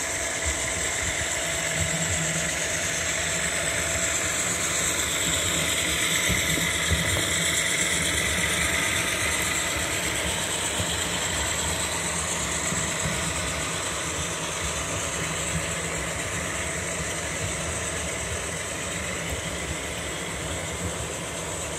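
HO scale model freight train led by CSX diesel locomotives running past, a steady engine-like running sound with the rattle of cars on the track. It grows to its loudest about seven seconds in as the locomotives pass, then eases off as the freight cars follow.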